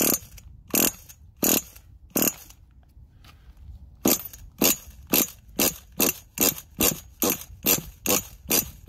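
Pull-starter on a nitro RC truggy's .28 glow engine being yanked over and over, a sharp whirring rasp with each pull. There are four pulls, a short pause, then a quick run of about a dozen pulls at about two a second. The engine does not catch.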